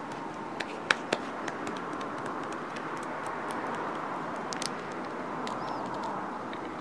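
Fingertips lightly patting lotion-covered facial skin: small, soft, irregular taps, a couple of them sharper about a second in, over a steady background hiss.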